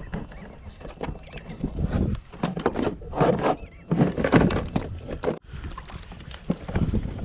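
Water splashing and sloshing against a kayak in irregular noisy bursts.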